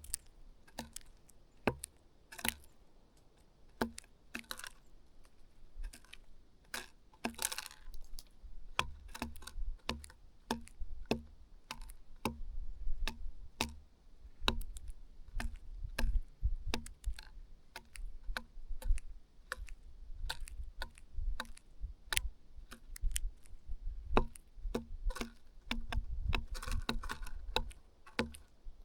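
Small birds pecking at food, beaks tapping sharply and irregularly several times a second, with a low rumble underneath and a brief flutter about 7 seconds in.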